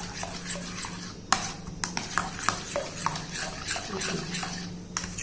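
A metal spoon stirring thick curd into black rice porridge in a bowl, with irregular light clinks and scrapes of the spoon against the bowl.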